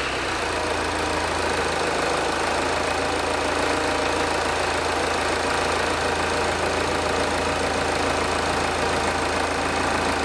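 Diesel engine idling steadily, just after being started.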